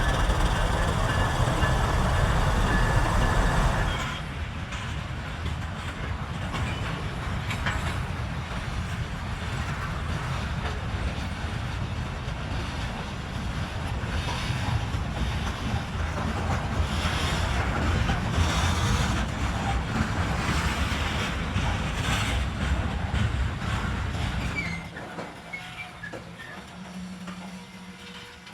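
A train rolling past: continuous rumble and clatter of steel wheels on the rails, loudest for the first few seconds, then a steadier rumble that fades away near the end.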